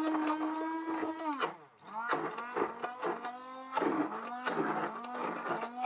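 Handheld stick blender running in a pot of beetroot, puréeing it. The motor's pitch sags and wavers as the blades chop through the chunks, with many small clicks. It stops for a moment about a second and a half in, then starts up again.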